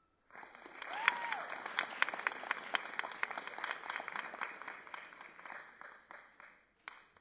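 Audience applauding: the clapping starts suddenly, swells, then thins out and fades, leaving a few scattered claps near the end. A single cheer rises and falls about a second in.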